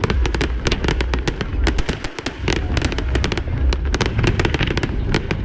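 Aerial fireworks display: rapid crackling pops, several a second, over a deep, continuous rumble of booms.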